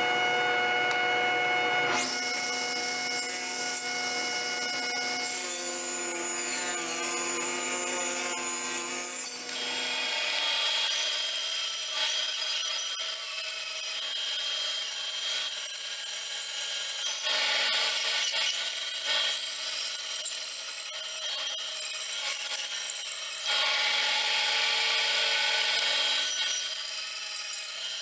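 A table saw motor running steadily for about two seconds, then a change to other machine running. From about ten seconds in, a band saw cuts a wooden block, its blade rasping through the wood over a steady high whine.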